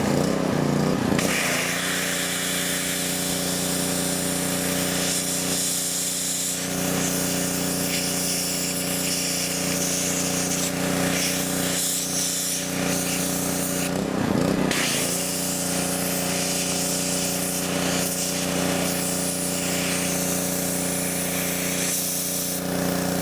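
Pressure washer running with a steady hum, its high-pressure water jet hissing as it blasts a flip phone. About fourteen seconds in the hum falters briefly, then picks up again.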